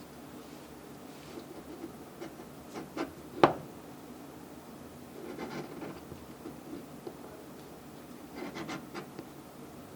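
Pieces of a 3D-printed plastic joint being handled and slid together, with scraping and rubbing. A few small clicks come about three seconds in, the loudest a single sharp click.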